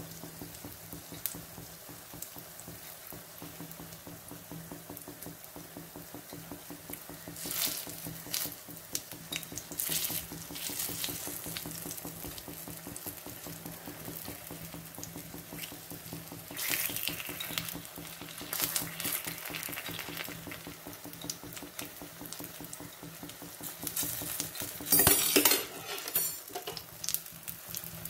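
Unniyappam frying in oil in a metal unniyappam pan, a steady sizzle throughout. A skewer scrapes and clicks against the pan now and then as the balls are turned, loudest about 25 seconds in.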